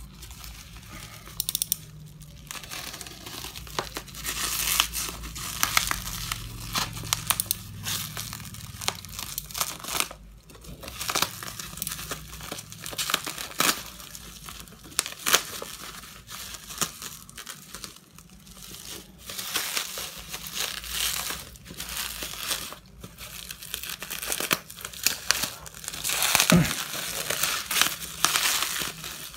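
Bubble wrap and packing tape being torn and crumpled off a cardboard box: a continuous run of crinkling, crackling and tearing, loudest near the end.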